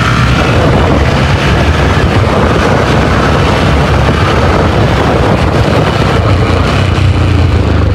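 Motorcycle engine running steadily while riding, mixed with loud wind and road rush on the rider's microphone.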